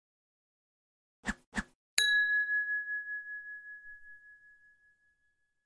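Logo sting: two quick soft taps, then a single bright chime struck about two seconds in, ringing on one high note and slowly fading away with a slight wavering.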